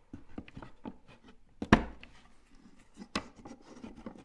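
Small wooden dowels being pushed into holes in laser-cut wooden panels: a string of light wooden clicks and knocks. The loudest knock comes about a second and a half in, and another sharp one comes about three seconds in.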